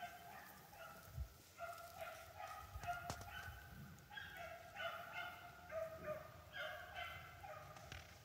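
Faint baying from a pack of rabbit-hunting dogs running a swamp rabbit's trail: many short, overlapping bawls, several a second.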